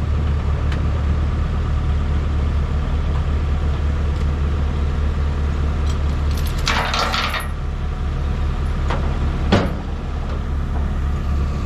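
A heavy machine's engine runs steadily at a low hum while it is loaded onto a trailer. A burst of metallic clanking and scraping comes about seven seconds in, and a single sharp knock follows a couple of seconds later.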